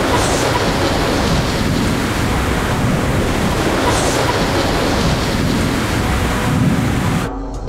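Heavy rain falling as a dense, steady hiss with low surges now and then, cutting off suddenly near the end.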